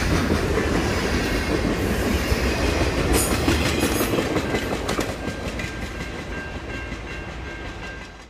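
Freight cars rolling past on the rails, wheels clacking over the rail joints. The last car goes by about four seconds in, and the sound then fades steadily as the train pulls away.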